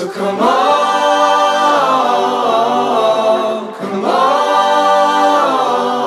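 Music: a cappella voices singing long held chords in two phrases, the second starting just before four seconds in.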